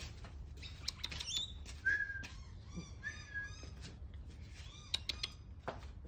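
Rainbow lorikeet giving short chirps and a quick run of chattering calls, with a couple of brief whistled notes, and a few sharp clicks about five seconds in.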